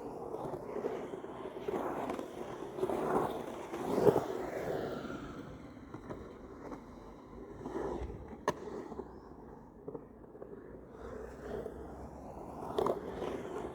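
Skateboard rolling, its wheel noise swelling and easing every second or so, with sharp clacks of the board about four seconds in, about eight and a half seconds in, and near the end.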